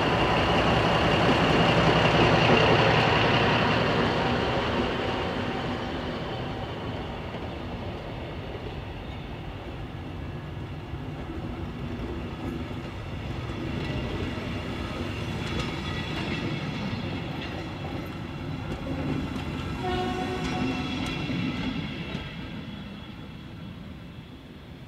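A class 112 (DR V 100) diesel-hydraulic locomotive runs past pulling a passenger train. Its engine is loudest in the first few seconds. The coaches then roll by with a steady rumble of wheels on rails, which swells again partway through and fades near the end as the train moves away.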